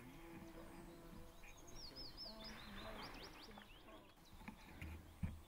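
Faint forest ambience with a small songbird singing quick, high whistled warbles and chirps, and a brief knock near the end.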